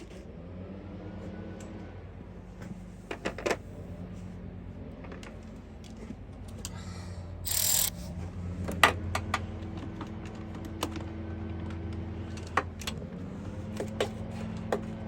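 Metal hand tools clicking and clinking against bolts and brackets while an AC compressor is being unbolted from an engine bay, with a short scraping burst about eight seconds in. A steady low hum runs underneath.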